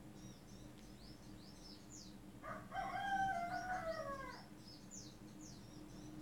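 A rooster crows once, about two and a half seconds in, a call of nearly two seconds that falls away at the end. Small birds chirp repeatedly throughout, in quick high falling notes.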